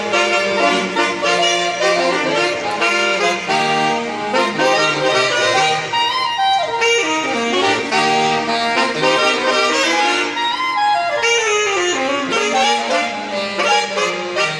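Saxophone quartet playing sustained close-harmony chords in barbershop style, with a couple of downward pitch slides partway through.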